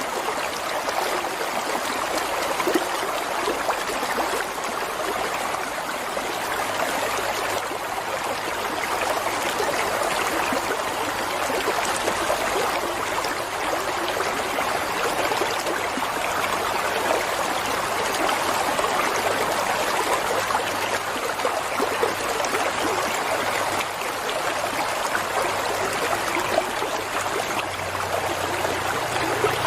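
Flowing water running and trickling steadily, an even rushing with small splashing flickers.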